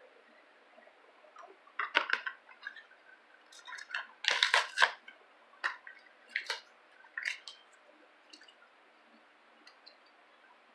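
Plastic blister pack of a Hot Wheels die-cast car being cracked and torn off its cardboard card: a string of crackles and snaps, loudest about four to five seconds in, with a few more after.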